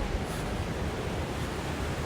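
Steady rushing noise of ocean surf breaking on the beach, mixed with wind on the microphone.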